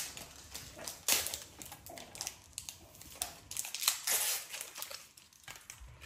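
Trading-card pack wrappers crinkling and tearing, with cards handled and shuffled: irregular rustles and crackles, loudest about a second in and again around four seconds in.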